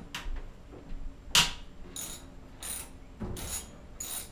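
Hand ratchet with a 10 mm socket clicking in several short bursts of rapid clicks as the tank bolts are worked loose.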